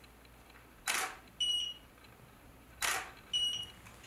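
Canon 6D DSLR shutter firing twice, about two seconds apart. About half a second after each shot comes a short high beep from the Elinchrom BRX 500 studio strobe as it recycles after the flash.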